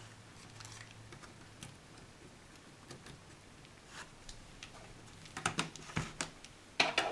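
Small plastic and metal clicks and taps of a screwdriver and hands working on a laptop screen assembly, taking out its tiny screws and loosening the screen. The clicks are sparse at first and come louder and closer together in the last two seconds.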